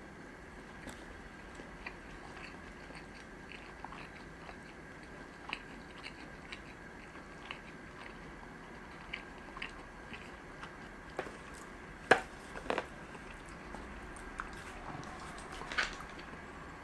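Close-miked chewing and biting of sushi, with many small wet mouth clicks, and two sharper clicks about twelve seconds in and another near the end. A faint steady high tone runs underneath.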